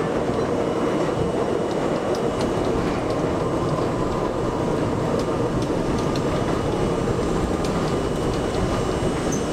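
NYC Subway train running along elevated track, heard from inside the car: a steady rumble of wheels on rail with scattered clicks over the rail joints.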